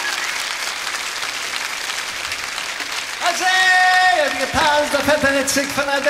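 Crowd applauding. About three seconds in, long held pitched notes start over the applause, the first sliding down in pitch before settling on a lower note.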